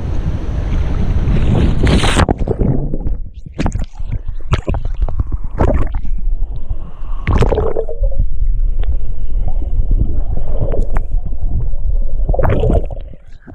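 Water sloshing, splashing and gurgling close against a waterproof GoPro action camera as it is swept through river water and dipped under the surface, with a heavy muffled rumble and irregular knocks and bubbling.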